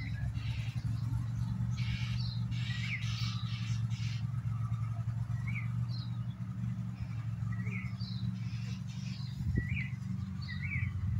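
Small birds chirping outdoors: short, sharp chirps every second or two, with a few fainter patches of song between, over a steady low hum that is the loudest sound throughout.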